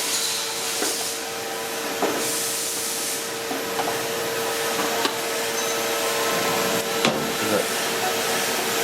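Steady hiss of running machinery with a constant hum, and a few light clicks of tools on metal parts during an adjustment of the machine's screws.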